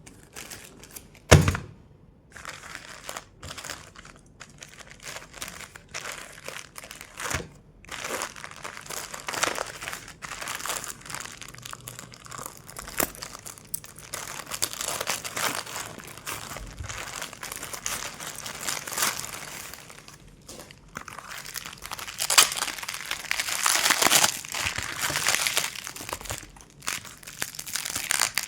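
Packaging being unwrapped by hand, crinkling and rustling, with a sharp knock about a second in. The crinkling grows denser and louder near the end.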